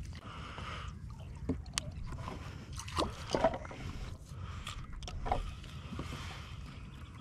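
Knocks, scrapes and some sloshing in a boat as a large wallago catfish is handled and tied up, with a few sharp clicks and the loudest knocks about three seconds in, over a steady low rumble.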